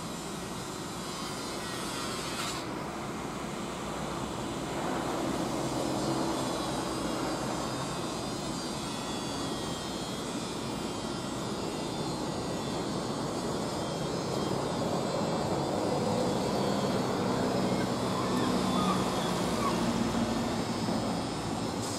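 A distant engine drones over steady outdoor background noise, getting somewhat louder in the second half.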